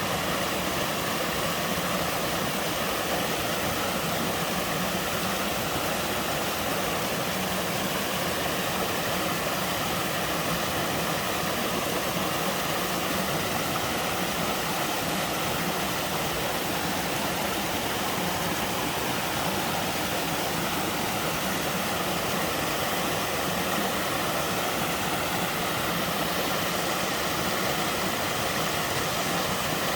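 Small mountain waterfall pouring steadily into a valley stream, a constant even rush of water.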